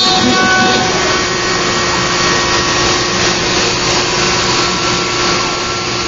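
CNC router spindle running steadily while its bit carves grooves into a wooden board: a steady motor whine over the rushing noise of the cut.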